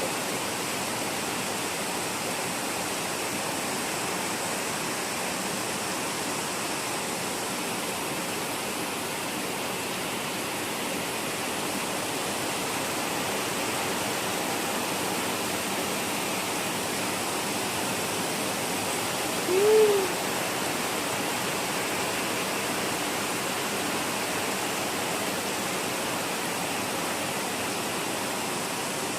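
Heavy rain falling steadily, a dense even hiss. About twenty seconds in, a single short tone rises and falls in pitch over it.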